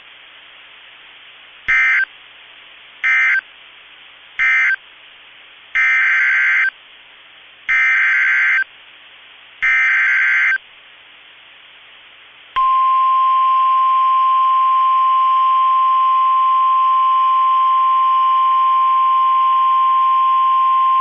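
NOAA Weather Radio SAME alert signals, heard over steady radio hiss. First come three short data bursts that end the previous warning, then three longer data bursts that carry the header of the next warning. A little past halfway, the steady single-pitch 1050 Hz warning alarm tone starts and holds.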